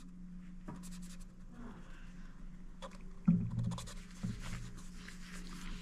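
Faint handling noises: scattered small clicks and rubs of fingers on a small plastic indoor security camera while feeling for its deeply recessed sync button.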